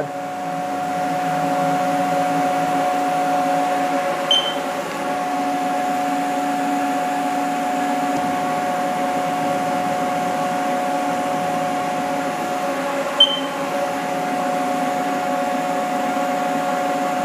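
CNC milling machine's axis drives whining steadily as the machine jogs to reset its Z zero, a dial-type Z setter in the spindle. Two short high chirps sound about 4 and 13 seconds in.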